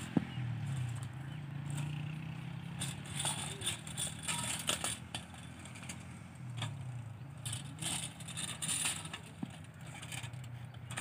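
Stone hand-mill (chakki) grinding disc, fitted as a bicycle's front wheel, rolling over a dirt track. A low rumble runs under irregular clicks and scrapes, with one sharp click just after the start.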